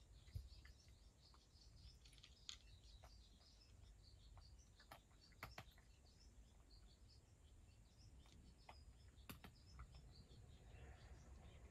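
A cat eating dry kibble from a dish: faint, irregular crunches and clicks.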